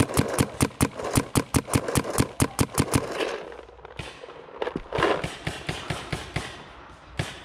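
Paintball markers firing in rapid strings, about six shots a second for the first three seconds, then scattered fainter shots, with a short burst of scuffing noise about five seconds in.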